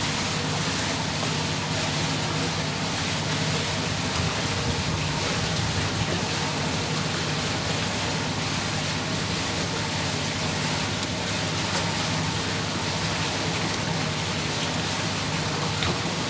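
A moored ship's machinery running: a steady low hum under an even rushing noise.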